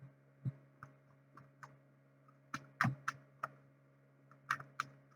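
About a dozen light clicks and taps at an uneven pace, the loudest about three seconds in and again near the end, over a faint steady low electrical hum.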